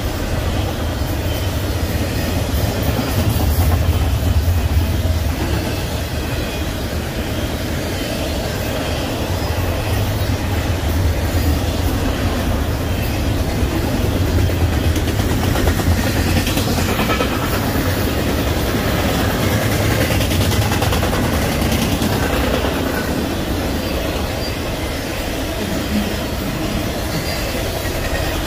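Double-stack intermodal container cars rolling past at speed: a steady low rumble of steel wheels on the rails.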